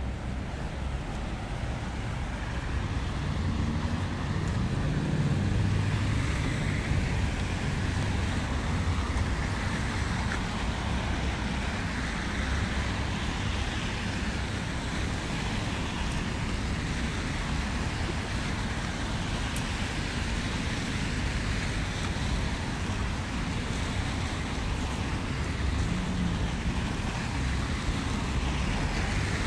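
Steady city road traffic noise.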